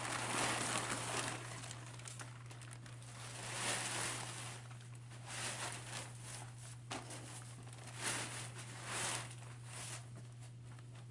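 Irregular rustling and crinkling of something being handled and moved about, with scattered small clicks, over a steady low hum.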